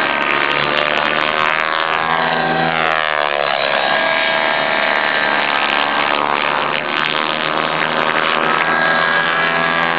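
Thunder Tiger e720 electric RC helicopter in flight, its motor and rotor whine steady, sweeping down and back up in pitch as it manoeuvres, about two seconds in and again near the end.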